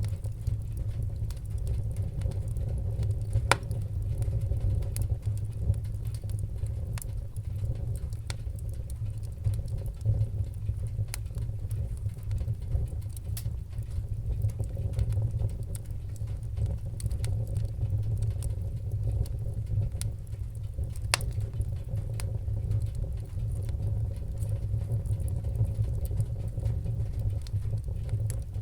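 Wood fire burning with a steady low rumble of the flames and irregular sharp crackles and pops, a few louder pops standing out.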